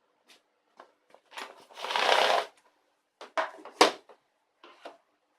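Handling noises: a short rustle or scrape about two seconds in, then a quick run of clicks and knocks, the sharpest just before four seconds.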